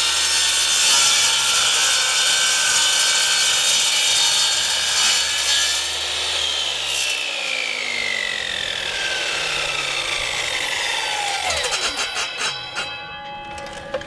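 Sliding mitre saw cutting through aluminium angle for about seven seconds. The trigger is then released and the blade spins down with a long falling whine, followed by a few clicks and knocks near the end.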